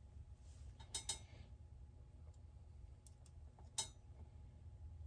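A few light clicks and clinks of small metal bolts being handled, two close together about a second in and a sharper one near the end, over a low steady hum.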